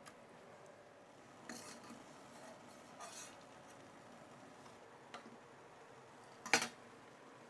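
Faint clinks of a metal slotted spoon against a stainless steel pot while boiled taralli are lifted out of the water, a few separate touches, then one louder, sharper kitchenware clatter near the end.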